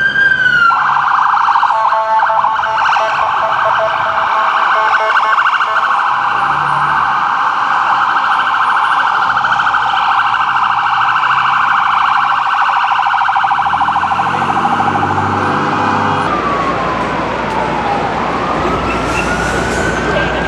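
Electronic ambulance siren: a wail sweep ends just after the start and gives way to a fast yelp that cycles steadily, with short low hums coming and going underneath. About 16 s in, the sound switches to a slow wail rising and falling over a wash of street noise.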